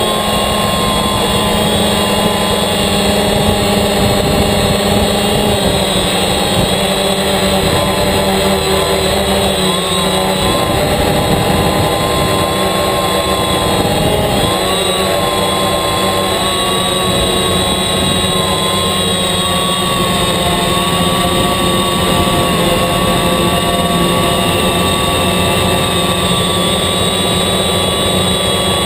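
DJI Phantom quadcopter's electric motors and propellers whining steadily in flight, picked up by the GoPro mounted on the drone itself. The pitch wavers briefly about halfway through.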